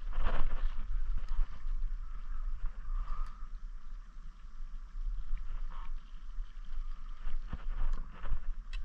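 Wind rumbling on the microphone over open-air lakeside ambience, with a few faint clicks.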